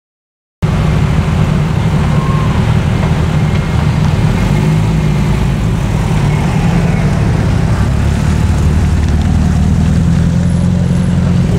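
Steady traffic noise of several cars driving slowly along a street, a continuous low engine rumble that starts suddenly about half a second in.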